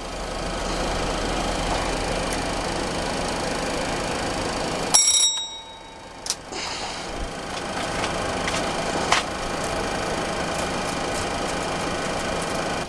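Steady flight-deck hiss in a parked Boeing 737-400 cockpit, before the engines are started. About five seconds in, a single short bell-like chime rings out, followed by a few sharp switch clicks.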